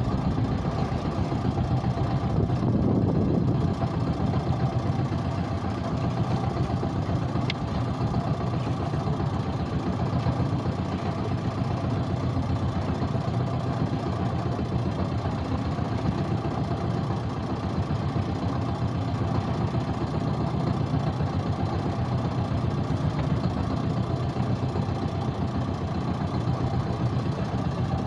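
Small fishing boat's engine running steadily at low speed, an even hum with no change in pitch, as the boat moves slowly while its gillnet is set.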